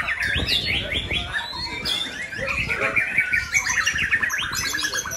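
Several caged songbirds, white-rumped shamas among them, singing at once: overlapping chirps, trills and quick whistled glides, with a fast run of rapidly repeated notes in the second half. A steady low rumble of background noise lies underneath.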